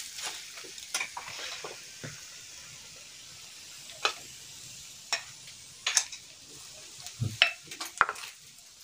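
Faint steady sizzling on a hot iron tawa as beaten egg is spread over a chapati, broken by several sharp clinks of a steel spoon against a steel bowl and the pan.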